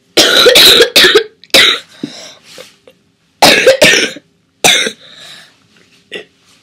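A girl coughing in several loud, breathy bursts: a group in the first couple of seconds, a pause of over a second, then another group.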